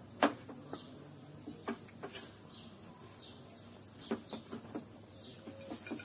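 Birds chirping faintly in short calls, with scattered sharp clinks of dishes and cutlery at the table, the loudest about a quarter second in.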